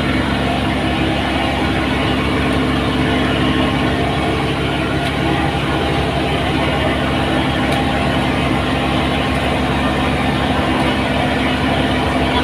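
An engine running steadily at an even speed, a constant low drone with no change in pitch or level.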